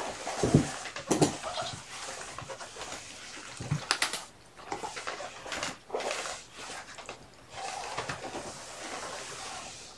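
Kittens playing on a fabric pet cot: rough scratching and rustling of claws and paws on the cloth, with a few light knocks near the start and about four seconds in.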